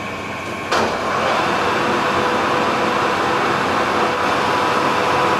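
Metal lathe switched on just under a second in, its motor and spindle with three-jaw chuck coming up to speed and then running steadily with a hum.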